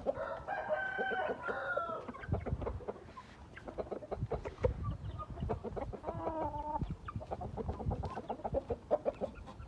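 Gamefowl roosters calling: a drawn-out call from about half a second to two seconds in and a shorter, lower one around six seconds, with scattered short clicks and taps between them.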